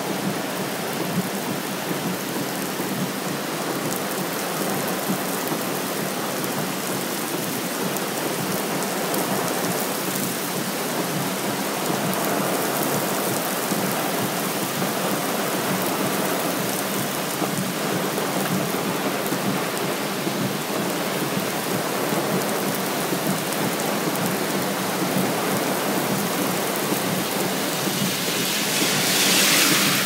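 Steady rushing wash of a flooded, muddy river in spate mixed with heavy typhoon rain. Near the end a car passes close by, its tyres hissing on the wet road.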